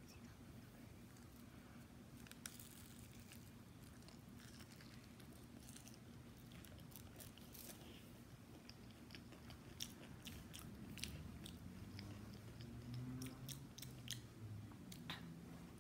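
Close-up chewing of crunchy breaded fried food, with crisp crunches several times a second that grow more frequent in the second half.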